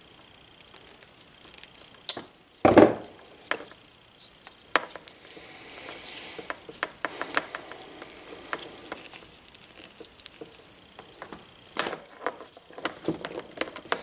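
Scattered clicks and knocks of hand tools and small cable parts being handled, with two louder knocks, about three seconds in and near the end.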